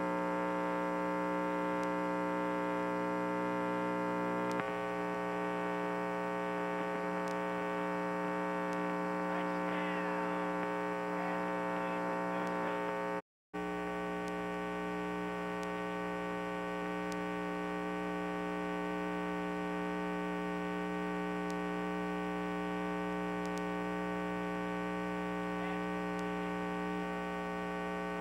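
Steady electrical mains hum, a buzz made of many evenly stacked tones that holds level throughout. The sound cuts out completely for a moment about thirteen seconds in.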